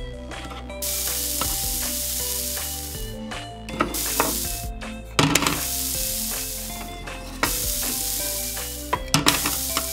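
Sizzling grill sound effect that comes in stretches of a second or two with short breaks as toy food is turned over, over soft background music. A few sharp clacks come from the tongs on the wooden toy food.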